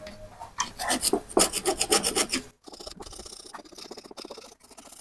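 A small flat-bladed hand tool scraping the inside of a water pump motor's metal housing to clean out residue. There is a quick run of rasping strokes for about two seconds, then lighter, fainter scraping.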